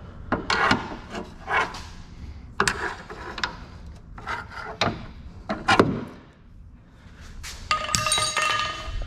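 Metal clanks and knocks as suspension hardware and tools are handled and worked into the rear brackets. The knocks come at uneven intervals, and about three-quarters of the way through something metal rings for about a second.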